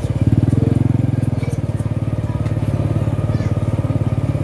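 A small motorcycle engine running steadily under way, heard from on the bike itself, with an even, rapid pulsing.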